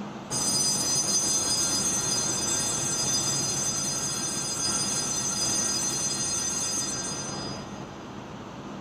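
Altar bells ringing for the elevation of the host, a shimmer of many high, steady ringing tones that starts suddenly and cuts off near the end.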